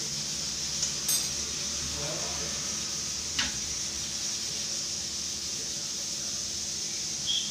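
Steel kitchen utensils clinking: a ringing clink about a second in and a sharper tap a couple of seconds later, over a steady hiss from a covered steel pot cooking on a lit gas burner.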